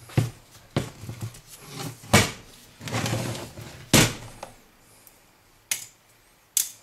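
Parts of a dismantled LCD monitor panel being handled on a wooden workbench: plastic screen layers and the sheet-metal frame knock and clatter about half a dozen times, with a longer scraping sound about three seconds in.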